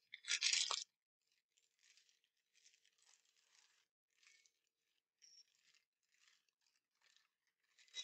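Paper wrapper of a sterile glove pack rustling and crinkling as it is pulled out and unfolded: a short louder crinkle just after the start, soft scattered rustles through the middle, and another crinkle at the end.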